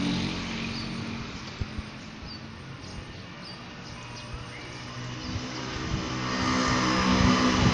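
Motor vehicle engines passing on a nearby road: one fades away in the first couple of seconds, then another approaches and grows louder toward the end.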